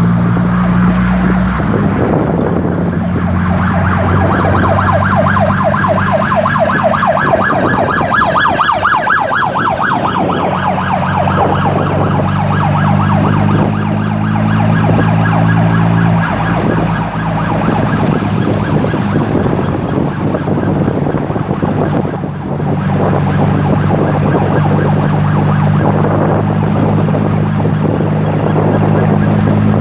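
Ambulance siren sounding a fast-pulsing wail, loudest from about four to ten seconds in and fainter after, over a steady low engine hum.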